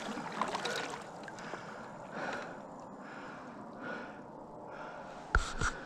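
Kayak paddle strokes in calm water: soft swishes and drips about every second and a half. Two sharp knocks close together near the end.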